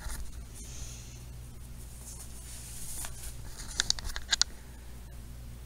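Handling noise from a phone camera being moved about: soft rustling, with a few sharp clicks a little under four seconds in, over a steady low hum.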